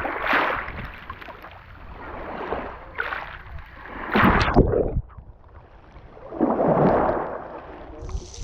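Black Sea surf: waves breaking and washing up the shore, surging loud about four times over a steady low rumble.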